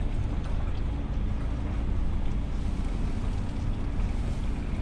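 DAF truck's diesel engine running as the truck drives slowly, heard from inside the cab: a steady low drone.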